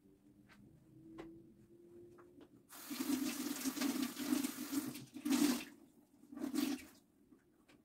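Kitchen sink tap running into the sink: turned on about three seconds in for roughly two seconds, then two short runs. A few faint clicks come before it.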